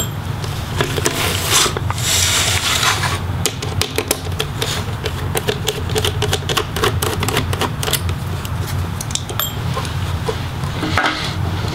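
Phillips screwdriver backing out the display hinge screws of an Acer Nitro 5 laptop: a run of quick, light metallic clicks and scrapes, with a brief scuffing rustle about two seconds in. A steady low hum sits underneath.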